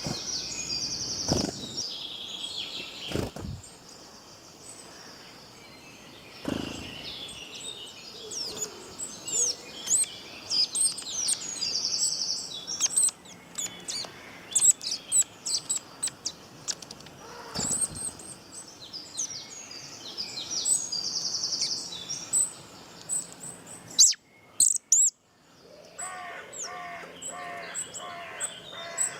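Several birds chirping and singing, with many short high chirps, whistled notes and buzzy trills overlapping. Near the end a lower call repeats several times in quick succession.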